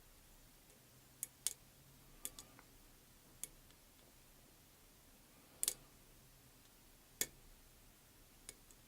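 Sparse, irregular light clicks of a lock pick and tension wrench working the pins inside a challenge lock.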